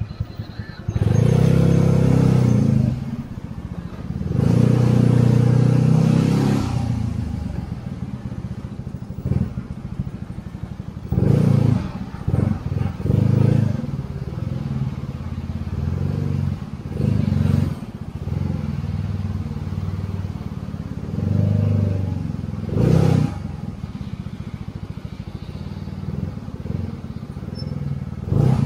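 Small Yamaha motor scooter engine running at low speed, swelling in a series of throttle openings a few seconds apart and dropping back toward idle between them.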